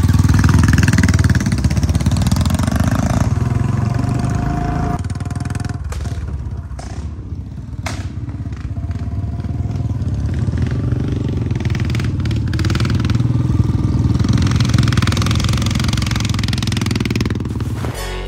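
Royal Enfield single-cylinder motorcycle engines running on the move, a deep steady engine note that swells and eases as the bikes ride, with a few abrupt breaks.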